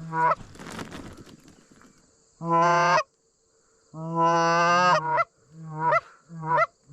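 Canada goose call blown by a hunter: a short honk, then two drawn-out honks, then three quick clucking honks near the end. Each note breaks upward in pitch and cuts off sharply, calling to a single incoming goose. A brief rushing noise follows the first note.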